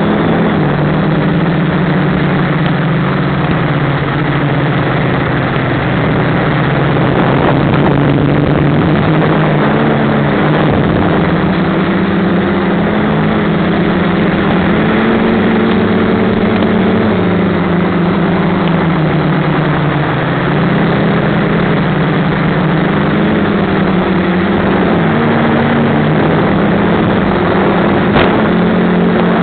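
Quadcopter motors and propellers buzzing in flight. The pitch rises and falls every few seconds as the throttle changes, over a steady rushing hiss, with a single short tick near the end.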